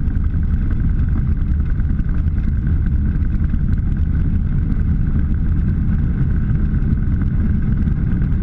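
Turbocharged Subaru EA81 engine of a Mark II Dragonfly, driving a three-blade Warp Drive propeller directly, running steadily as heard inside the cockpit: a low drone with a steady high whine over it.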